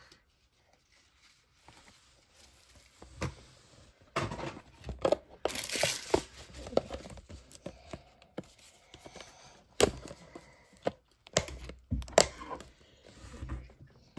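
A Topps Holiday Mega Box of baseball cards being torn open by hand: a burst of tearing and crinkling packaging about four seconds in, then several sharp knocks and taps as the box is handled.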